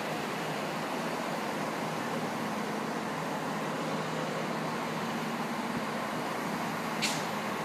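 Class 153 diesel railcar idling at the platform: a steady hum from its underfloor Cummins diesel engine. A short, sharp high hiss comes near the end.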